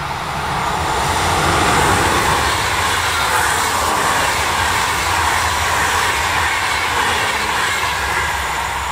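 Electric-hauled passenger train passing at speed: a steady rush and rumble of steel wheels on rail. It is loudest about two seconds in as the locomotive and first coaches go by, then eases slightly as the last carriages pass and move away.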